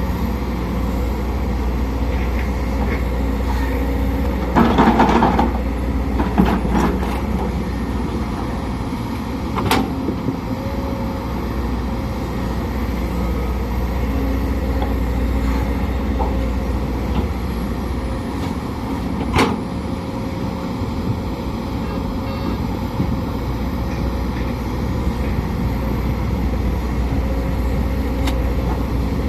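Sumitomo SH210 hydraulic excavator's diesel engine running steadily at working speed with a faint steady whine, while loading mud. About five seconds in there is a short rush of scraping noise, and two sharp knocks come at about ten and twenty seconds.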